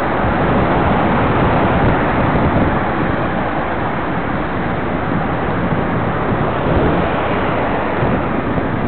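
Steady rush of wind on the microphone of a bicycle-mounted camera while riding, with road traffic underneath.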